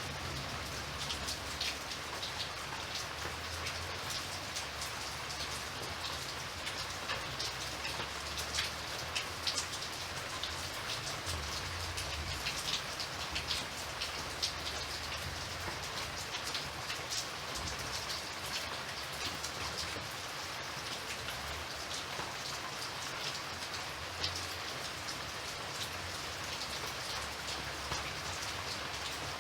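Steady rain falling on a surface, with a dense patter of individual drop ticks.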